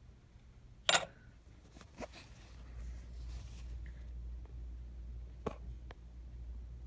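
A few sharp clicks and taps from handling the opened plastic flashlight and its parts, the loudest about a second in, over a low steady hum.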